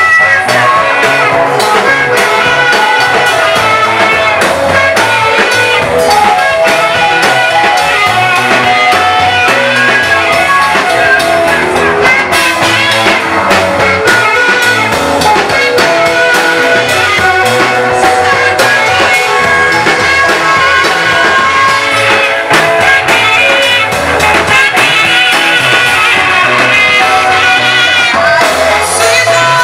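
Live gospel praise music from a church worship team: voices singing over a band, with guitar prominent, loud and continuous.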